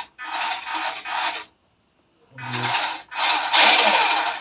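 Electric motor and gear drivetrain of a WPL D12 RC pickup truck whirring with a rasping gear noise under forward throttle, in two bursts: a shorter one with brief dips, then a longer, louder one from a little past halfway.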